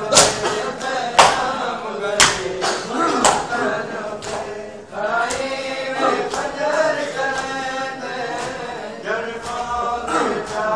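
A crowd of men chanting a noha, a Shia mourning lament, in unison. Sharp slaps of hands on chests (matam) keep time about once a second in the first few seconds, then grow fainter.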